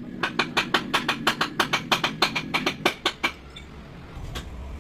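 A rapid, even series of sharp taps, about five a second for some three seconds, then one more tap near the end.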